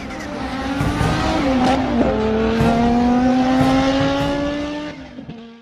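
Toyota Corolla WRC's turbocharged four-cylinder 3S-GTE rally engine at full attack, with a sharp crack about 1.7 s in. Its pitch drops around two seconds in, then rises steadily as it pulls hard through one gear, before fading away near the end.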